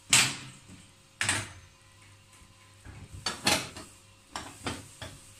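About half a dozen short clanks and knocks of metal against the enamel top of a small gas stove as it is wiped clean, the loudest right at the start.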